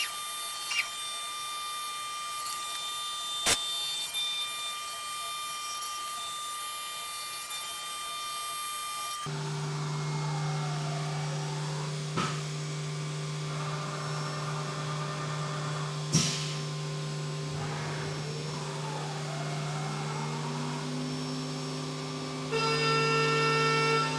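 Haas UMC 750 five-axis CNC mill machining aluminium: a steady spindle and machine whine with hum, taking a finish cut. About 9 s in the sound shifts to a lower, stronger hum, and whines then fall and rise in pitch twice. There are a few sharp clicks, and music comes in near the end.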